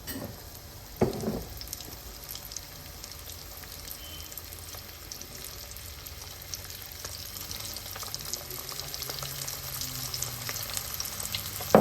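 Corn-flour-coated chicken wings frying in hot oil in a pan on medium-high heat, sizzling steadily with fine crackles and growing a little louder toward the end. There is a brief thump about a second in.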